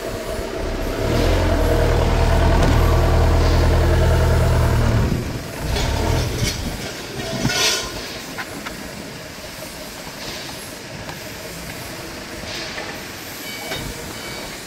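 Impact wrench hammering for about four seconds while tightening a nut, followed by scattered clinks and knocks of tools on metal.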